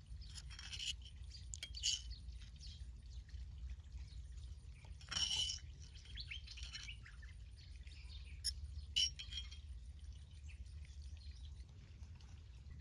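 Birds chirping in short calls, the loudest about five seconds in and two quick ones near nine seconds, over a steady low hum.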